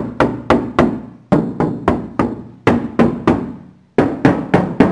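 Rapid knocking on the bare, unlined top panel of a VW panel van's sliding door, in four quick runs of about six knocks each. The thin single-skin steel sounds tinny and flimsy, the sign of a panel with no sound deadening or insulation behind it.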